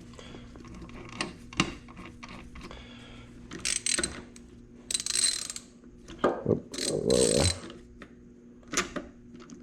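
Honda CR85RB transmission turned by hand on the bench: clicking and ratcheting from the shift mechanism and gears, with short whirring bursts as the gear shafts are spun, about five and seven seconds in.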